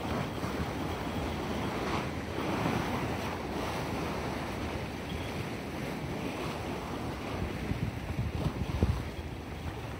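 Sea waves washing steadily, with wind buffeting the microphone in gusts that are strongest near the end.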